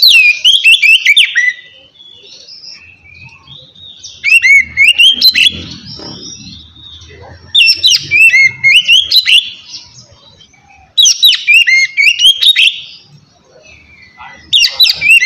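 Oriental magpie-robin (kacer) singing its loud, clear 'ngeplong' song. It gives phrases of quick whistled notes sliding up and down, each about two seconds long, repeated every three to four seconds with short pauses between.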